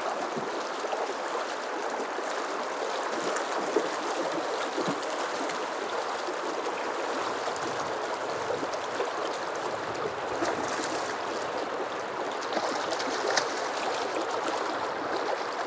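Steady rushing of a fast, shallow river current, with a few short splashes near the end from a hooked Atlantic salmon thrashing at the surface.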